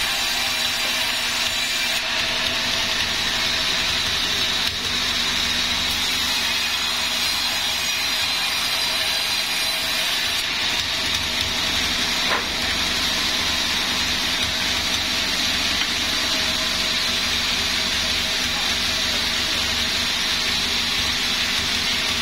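Sawmill saw running steadily through wadang timber: a continuous rushing noise with a steady high whine.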